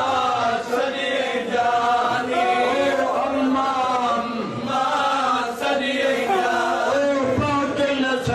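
Male voices chanting a noha, a Shia mourning lament, in long, wavering held lines without a break.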